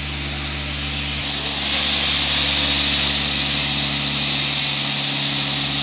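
Loud steady hiss from the smoking bitumen heater, over the low, even hum of a diesel tractor engine running. About a second in, the hiss jumps to a higher pitch.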